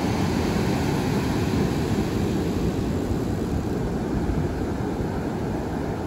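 Ocean surf breaking and washing up onto a sandy beach: a steady low rush of water with no letup.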